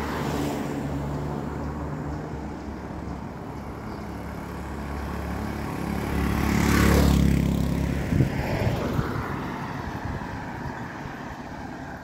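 A car drives past and fades away. Then a small motorcycle approaches and passes close by about seven seconds in, its engine loudest as it goes by, with a few sharp ticks just after, before it fades into the distance.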